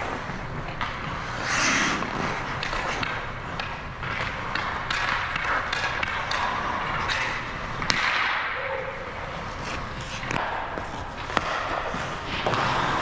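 Hockey skates scraping and carving on a rink, with frequent sharp clacks of pucks off sticks and boards; two stand out, about eight seconds in and again past eleven seconds.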